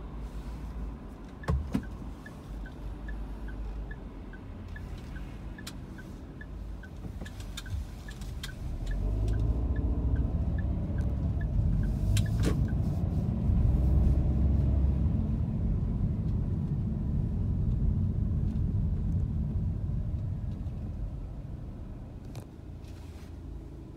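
Car cabin sound: low engine and road rumble that swells from about nine seconds in as the car pulls away and turns, then eases off near the end. Over the first half a turn-signal indicator ticks about two and a half times a second, and a sharp click sounds about a second and a half in.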